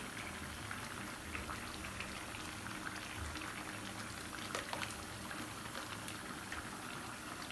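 Thin fish curry simmering in an aluminium pan: a steady bubbling hiss with scattered small pops.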